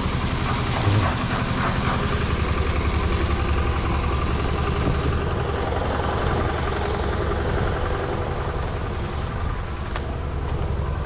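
Engine of heavy construction machinery running steadily at idle, a continuous low, evenly pulsing drone.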